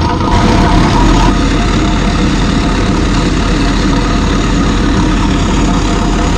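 Air-cooled Deutz V8 diesel of a 1980 Hoes drainage trencher running steadily as the machine cuts a trench, slightly louder for about a second near the start.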